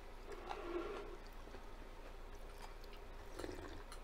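Faint mouth sounds of eating and drinking, with a sip from a mug of coffee near the end.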